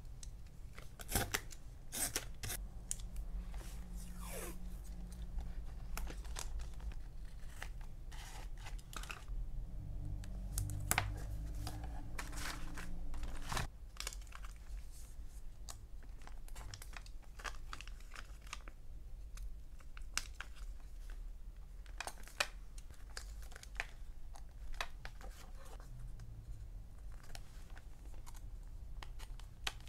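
Paper sticker sheets being handled and peeled: rustling, crinkling and tearing sounds with many small sharp clicks and taps throughout.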